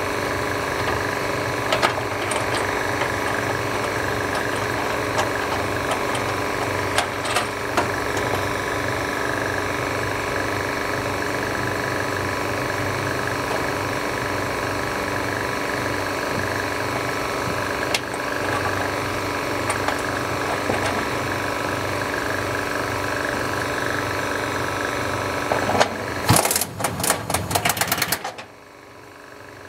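Air ratchet with a deep-well socket running a nut down: a steady running drone, then about two seconds of rapid rattling clatter near the end as the nut seats, after which the tool stops.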